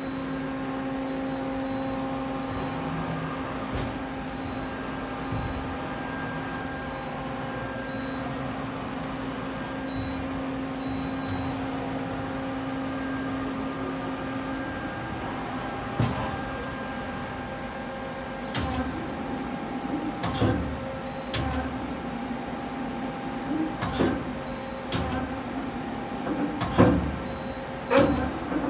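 Okuma Crown 769S CNC turning center standing powered up at idle, giving a steady hum with several fixed tones. Over the second half, irregular sharp knocks and clunks come in, a few seconds apart.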